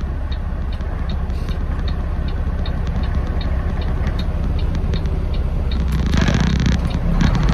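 In-cab drone of a 2011 Mack semi truck on the road: steady low engine and road noise, with faint regular ticking and a brief rushing hiss about six seconds in.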